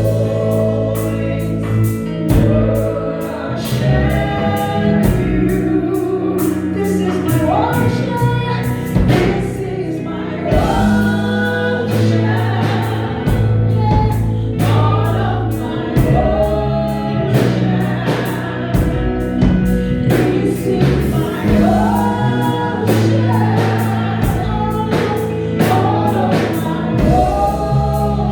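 Gospel choir singing over a band, with a low bass line and a steady beat of fine cymbal-like ticks.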